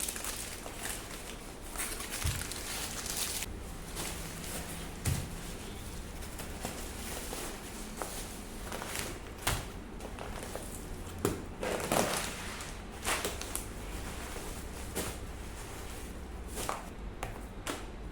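Irregular clicks, knocks and clatter of things being handled during housework, over a steady background hiss.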